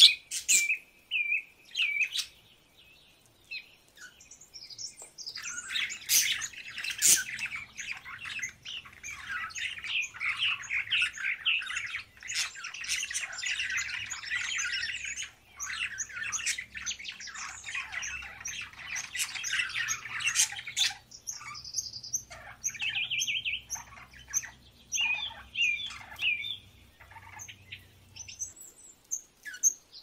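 Several caged budgerigars chattering and warbling together, dense and continuous from about six seconds in until about twenty, then only scattered short chirps.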